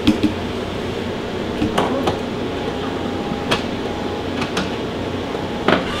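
Miele bean-to-cup espresso machine running with a steady hum and a few sharp clicks as it finishes dispensing a latte macchiato.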